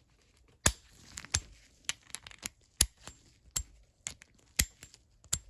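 Sharp metallic clicks and taps from the small steel parts of a disassembled 3/8-inch flexhead ratchet being handled, irregular, about one or two a second with fainter ticks between.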